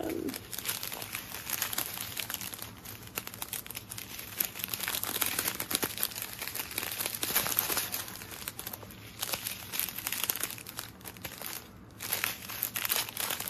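Thin clear plastic zip-top bags of diamond-painting drills crinkling as hands handle and turn them, on and off, with a short lull near the end.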